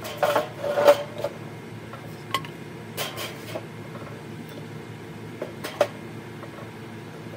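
Pieces of scrap lumber being set into a steel fire pit to build a log-cabin fire lay, knocking and scraping against the metal bowl and each other: a quick run of knocks in the first second, more around two and three seconds in, and two near the six-second mark.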